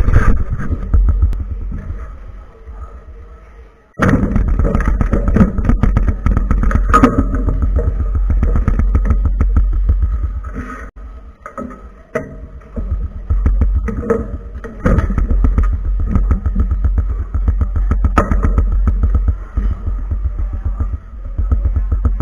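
A 4x4 speedcube being turned rapidly right next to the microphone: a dense, continuous clatter of plastic layer turns over a low handling rumble. The clatter fades, then comes back sharply about four seconds in.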